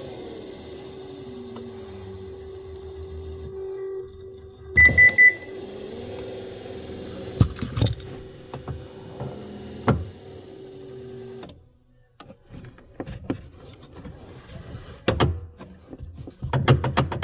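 Subaru Outback power rear hatch motor and gear drive running with a steady whir for about four seconds, then a loud triple beep, then the motor whirring again for about six seconds before it cuts off. Scattered clicks and knocks follow near the end. The drive turns out to be loose at its gear and motor.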